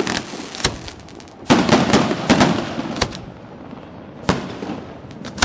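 Aerial fireworks shells bursting in an irregular run of sharp bangs, with a close cluster of reports about one and a half to three seconds in and single bangs later on, each trailing off with an echo.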